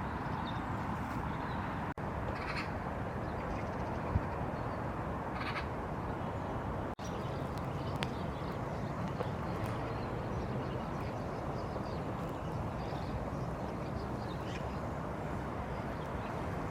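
Outdoor park ambience: a steady rushing background with a few short bird calls, the two clearest about two and a half and five and a half seconds in. The sound cuts out for an instant twice.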